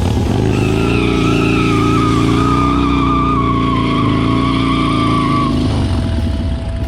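Harley-Davidson Dyna's V-twin engine running hard while the spinning rear tyre squeals against the pavement in a donut burnout attempt. The wavering squeal holds for about five seconds and cuts out near the end, leaving the engine rumble.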